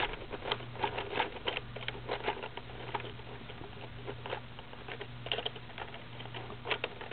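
Lego combination lock being dialled: a run of quick, irregular clicks and ticks from its plastic parts, over a faint steady low hum.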